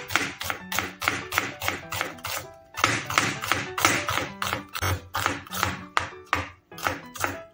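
Serrated kitchen knife slicing a red onion on a cutting board: quick sharp taps at about three to four a second, with a short pause a little over two and a half seconds in. Background music with steady notes plays underneath.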